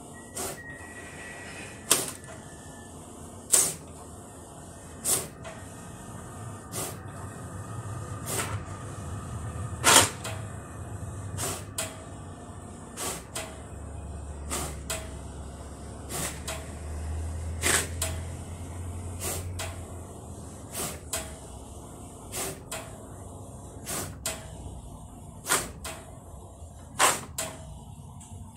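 HP DesignJet T2300 large-format inkjet printer printing a copy: a sharp click about every one and a half seconds, over a low hum that swells in the middle.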